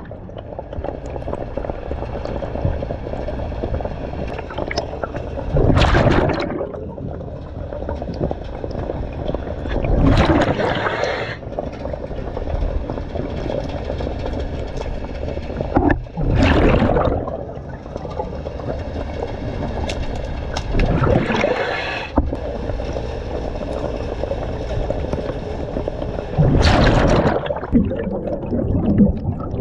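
Scuba diver breathing through a regulator underwater: a loud rush of exhaled bubbles about every five seconds, five in all, over a steady hiss between breaths.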